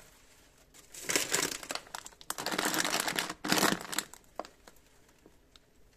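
Plastic snack wrappers crinkling as packets are handled and set on a shelf, in two bouts about a second in and from two to four seconds in, followed by a few light taps.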